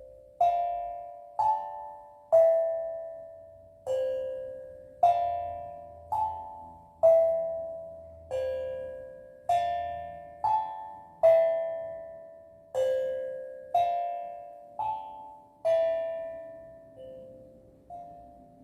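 Steel drum played slowly, one note at a time: about one struck note a second, some in quick pairs, each ringing out and fading before the next, in a gentle wandering melody.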